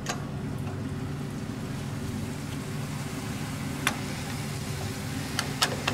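A steady low mechanical hum in the background, with a few sharp clicks and taps as small-engine carburetor and air cleaner parts are handled, the clearest about four seconds in and two more near the end.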